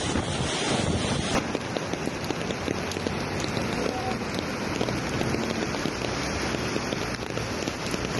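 Heavy rain pouring down, with wind buffeting the microphone. The noise changes character abruptly about a second in.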